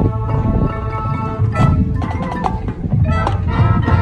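High school marching band playing: held wind chords over drums, with sharp mallet-percussion strikes.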